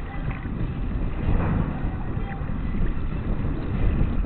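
Wind buffeting the microphone aboard a sailboat under sail: an uneven low rumble.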